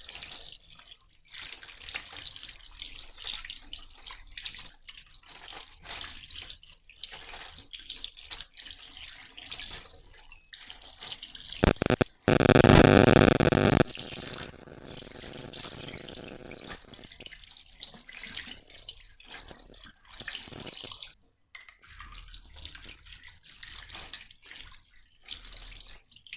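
Running tap water splashing over hands and raw chicken pieces as they are rubbed and rinsed in a sink, with uneven splashes throughout. About halfway through, the water runs much louder for about two seconds.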